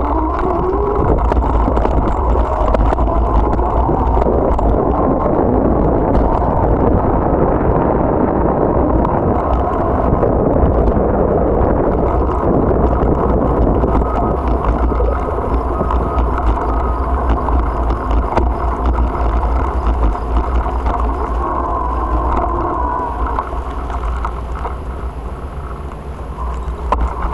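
Wind rumble on the microphone and road noise from a bicycle being ridden, a loud steady rush that eases slightly near the end.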